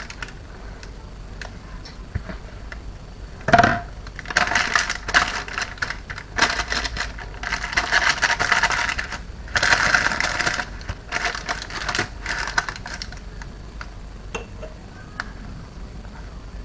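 A utensil scraping thick, stiffening fudge mixture out of a bowl and spreading it across a paper-lined tray. There is a knock a few seconds in, then repeated bursts of scraping and clicking that die away well before the end.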